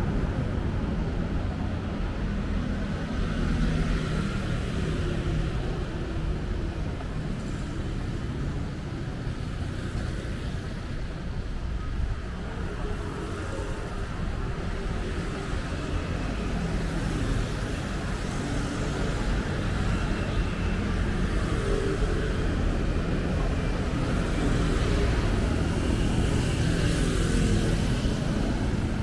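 Steady road traffic on a busy city street: a continuous low rumble of passing vehicles that swells slightly near the end.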